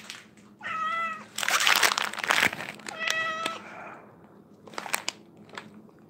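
House cat meowing twice, two short calls about two seconds apart, with a loud crinkling rustle between them and a few light clicks near the end.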